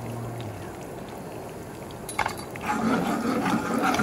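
Guanciale, chilli and garlic sizzling in olive oil in a nonstick wok, with a sharp knock about two seconds in; the sizzle grows louder near the end as the pan is tilted and swirled.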